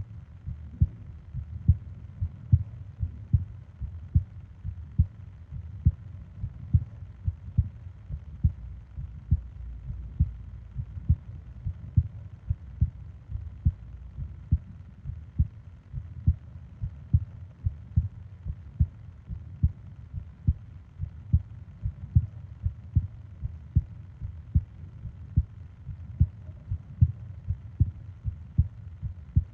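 Human heartbeat heard close up, a steady run of low double thumps (lub-dub) about once a second, over a faint steady hiss.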